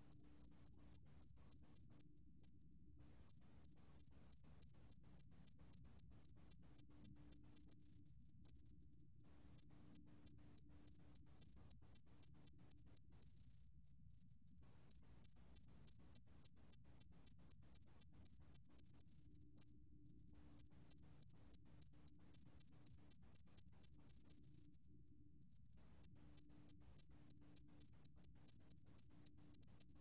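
A 새금빛종다리 cricket singing, recorded at 20 °C. The song is high-pitched and made of rapid pulses, about five a second, broken every few seconds by a sustained trill lasting a second or so.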